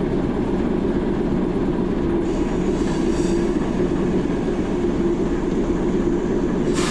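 Diesel shunter's engine idling steadily, with a faint hiss about two seconds in and a louder short hiss near the end.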